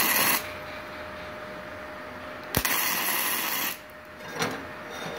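Gasless flux-core MIG welding arc crackling in short bursts as the torch is triggered on aluminium plate with non-aluminium, gasless wire: a burst under half a second at the start, a sharp strike about 2.6 s in followed by about a second of arc, and a brief spit near 4.4 s. A faint steady whine runs underneath.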